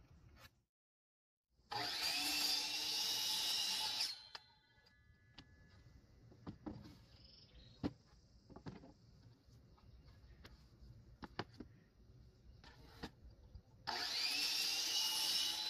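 Ryobi sliding compound miter saw run twice, each time for about two and a half seconds: the motor's whine rises as the blade spins up and cuts a wooden board, then winds down after the first run. Between the two runs, light knocks and clicks of boards being handled on the bench.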